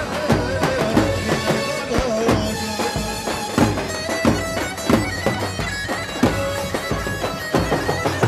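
Live Turkish halay dance music from a band: bağlama (saz) and keyboard with a reedy wind-like lead melody over a drum-kit beat.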